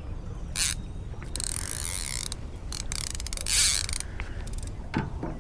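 Round baitcasting fishing reel ratcheting and whirring in two stretches, the first about a second in and a shorter one past the middle, with a quick run of clicks between them.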